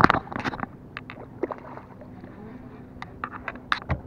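Handling noise while a hooked bass is fought from a boat: a loud knock at the start as an arm brushes the camera, then scattered irregular clicks and knocks from the rod, reel and hands. A faint steady hum lies underneath.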